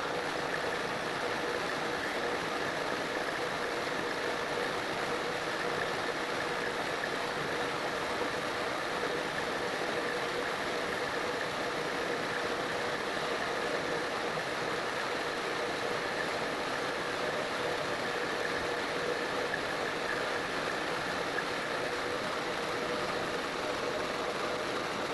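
Metal lathe running steadily while a boring tool cuts the inside of a large steel drill-pipe section, with a constant machine hum and whine over the hiss of the cut as steel chips curl off.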